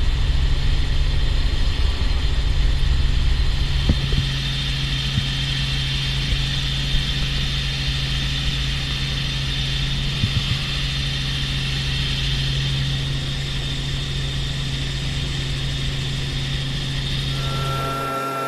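Steady cabin noise of a Robinson R44 helicopter in flight: engine and rotor running as an even low drone with a hiss above it. Near the end a few held musical notes come in over it.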